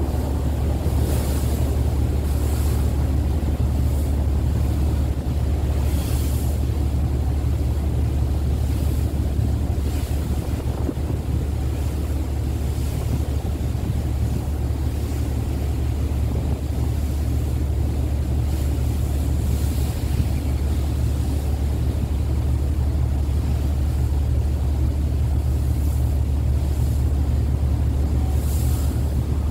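Sakurajima car ferry's engines running with a steady low drone while under way, with wind hissing on the microphone in short gusts now and then.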